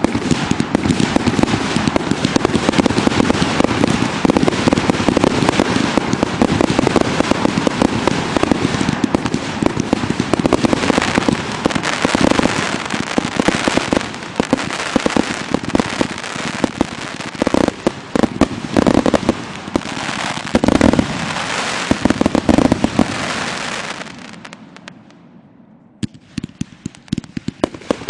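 Aerial fireworks firing in a rapid, dense barrage: a near-continuous crackle of launches and bursting shells, with heavier booms now and then. About 24 s in the barrage dies away, and a few separate pops follow near the end.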